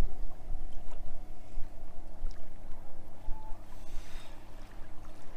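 Wind rumbling and buffeting on the microphone, with a few faint clicks and rustles of handling.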